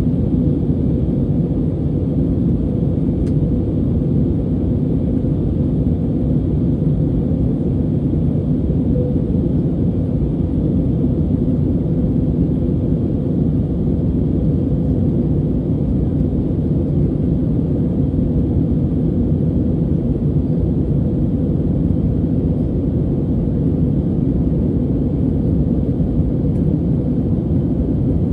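Steady cabin noise inside a Lufthansa Airbus A320neo in flight after takeoff: the constant deep rumble of its Pratt & Whitney geared turbofan engines and airflow past the fuselage, heard from a seat over the wing, with a faint steady hum.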